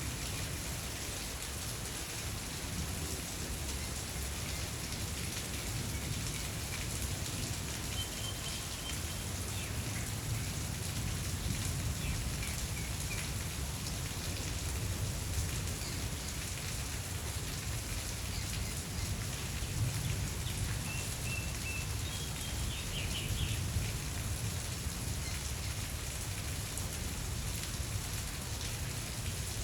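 Steady rain falling and pattering on surfaces, an even hiss over a low rumble. A few faint, short high chirps come through partway along.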